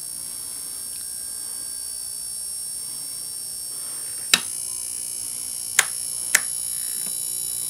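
High-voltage supply powering a Crookes railway (mica paddle-wheel) vacuum tube, giving a steady high-pitched electrical whine. Three sharp clicks cut through it, one a little after four seconds in and two close together about a second and a half later.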